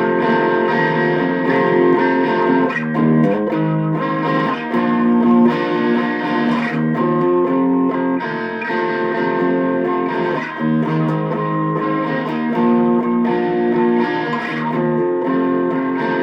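Epiphone Les Paul Special II electric guitar played through a Boss Katana Mini amp on its crunch channel with the tone selector on treble: a run of strummed, ringing chords that change every second or so.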